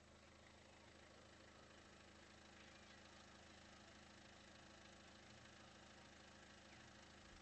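Near silence: a faint, steady low hum with no distinct sounds.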